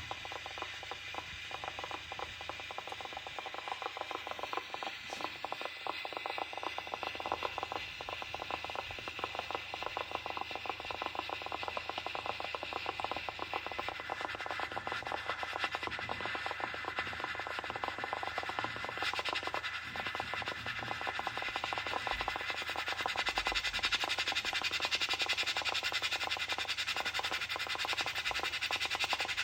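Rice cooker cooking: a dense, fast, even crackle of bubbling and steam that grows somewhat louder in the last few seconds.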